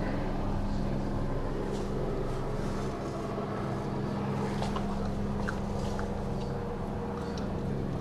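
Aircraft engine droning steadily overhead, with a few short bird chirps over it.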